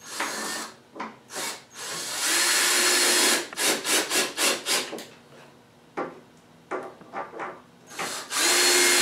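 Cordless drill driving screws into redwood boards, the motor running in a series of short bursts and two longer runs of about a second each, one a few seconds in and one near the end.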